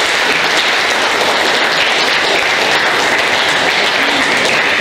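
Audience applauding: many people clapping, steady and loud.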